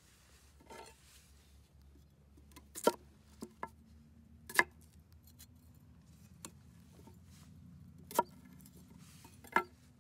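Knife cutting Chinese yam (nagaimo) into seed pieces on a wooden board: four sharp knocks as the blade chops through and strikes the board, with a few lighter taps between.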